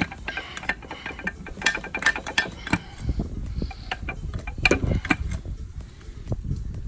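Hand tools working on metal: a run of irregular clicks and clanks as the transfer case is being taken off the transmission.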